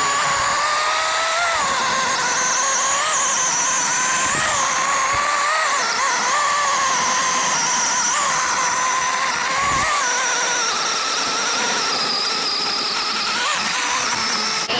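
DeWalt 20V cordless chainsaw with a 12-inch bar cutting through a log: a steady high whine from the electric motor and chain, its pitch wavering and dipping slightly as the chain bites into the wood, cutting off at the end.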